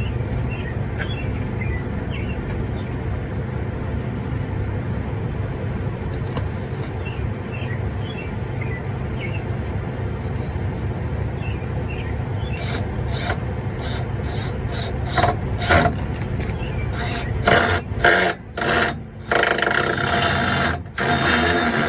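Steady low vehicle rumble throughout. More than halfway in, a run of sharp hammer blows starts, about two a second, as nails are driven at an angle (toenailed) into the truck's wooden framing. Near the end come longer, louder rough bursts of work.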